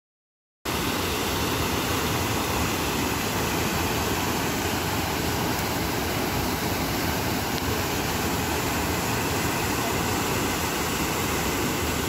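Water cascading down a stepped stone channel, pouring over a series of small weirs in a steady, even rush. It starts abruptly about half a second in, after a brief silence.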